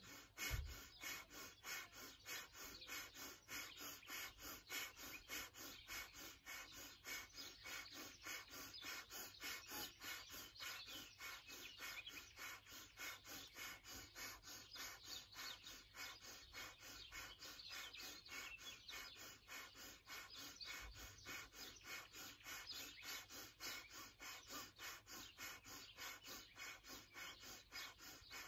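Kundalini yoga breath of fire: quick, even, forceful breaths through the nose, about three a second, each exhale pushed out by pumping the navel in.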